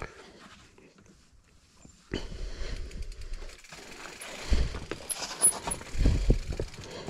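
A mountain bike rolling over rock, starting about two seconds in: tyres grinding and the bike knocking over ledges, with heavier thumps about halfway through and again near the end.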